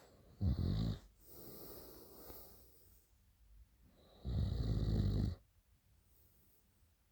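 A sleeping person snoring loudly: two low snores, the first short and the second about a second long, roughly four seconds apart, with a softer breath between them.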